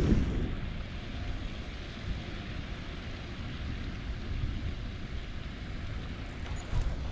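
Wind buffeting the microphone: a steady low rumbling noise, a little stronger at the very start.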